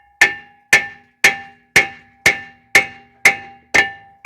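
A hammer strikes a front brake rotor and hub steadily, about two blows a second. Each blow leaves a metallic ring. The hammering is to knock the stuck rotor off the hub of a Toyota Sienna.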